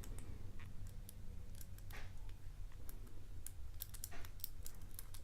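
Lock pick and tension wrench working inside a padlock's keyway during single-pin picking: small, irregular metallic clicks and scrapes as the pick lifts pins in the stack, here trying to get pin 2 to set.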